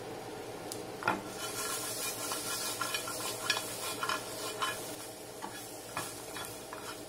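Small breaded silverside baitfish sizzling in a frying pan with scallions. From about a second in, the pan is tossed and shaken, giving a run of irregular knocks and clatters, and the sizzle grows louder while the tossing goes on.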